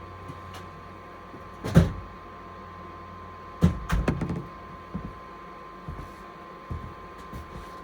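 Hcalory diesel air heater running with a steady hum and a constant whine, while several irregular knocks and thumps sound over it, the loudest about two seconds and four seconds in.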